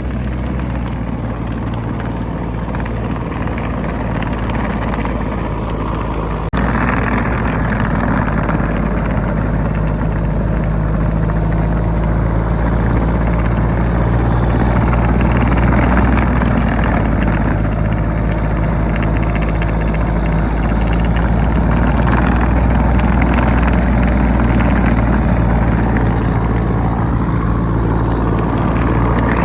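Tucker 1544 Sno-Cat with a swapped Isuzu 4BD1T turbo diesel running steadily while driving through deep snow; the sound steps up suddenly about six and a half seconds in and stays steady after that.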